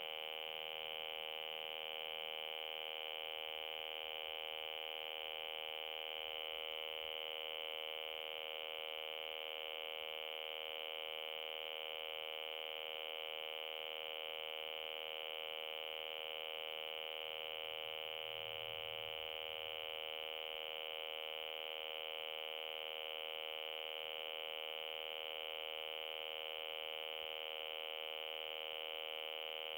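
A 2001 re-release Furby's speaker holding one continuous, unchanging electronic tone. It is a glitch noise after its batteries were disturbed, which the owner suspects means the toy has crashed.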